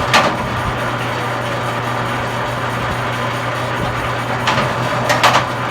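Commercial electric wire stripping machine running with a steady motor hum, with a few short sharp sounds as copper cable is fed through, once just after the start and a few times near the end.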